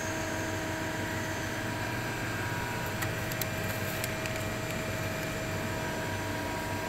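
Steady hum of running machine-shop machinery, with several constant tones over a noisy background. A few light clicks about three to four seconds in.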